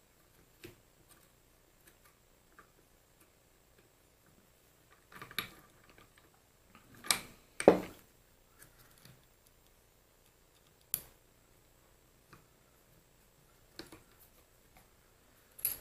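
Scattered clicks and clunks of small steel lathe parts being handled and fitted, with a louder cluster of knocks about five to eight seconds in and single sharp clicks later.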